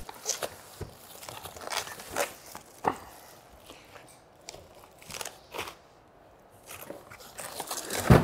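Rustling, scraping and crinkling of a monitor's foam wrapping and its cardboard box as the wrapped monitor is lifted out and laid down. There is a sharp thump near the end.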